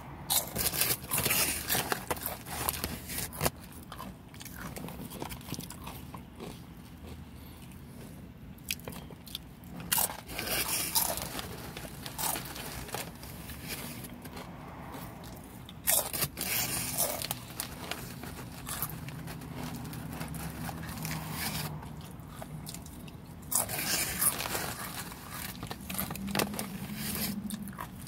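Tortilla chips crunching as a person bites and chews them. The crunching comes in about four bursts, near the start and roughly ten, sixteen and twenty-four seconds in, with quieter chewing between.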